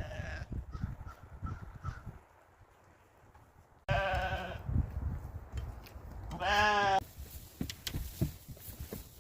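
Sheep bleating, three separate calls: one right at the start, one about four seconds in, and a quavering one near seven seconds. Low knocking and rustling from the animals close by runs underneath.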